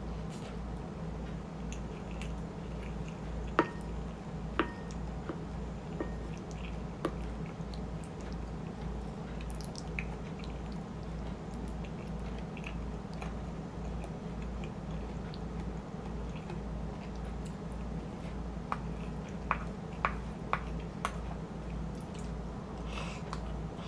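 Close-up chewing of shrimp chili and rice, soft and wet, with a steady chewing rhythm and a few sharp clicks, bunched a few seconds in and again near the end.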